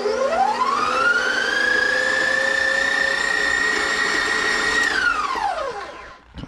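KitchenAid stand mixer motor driving a food processor attachment. It is switched up to high speed with a rising whine, runs steadily for about three seconds, then winds down to a stop when switched off. A sharp click comes right at the end.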